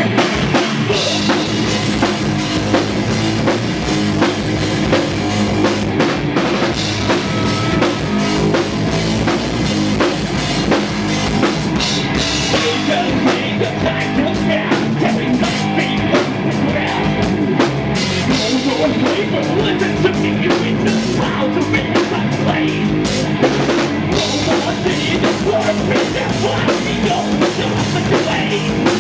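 Rock band playing live and loud: drum kit with a driving bass drum under electric guitars, continuing without a break.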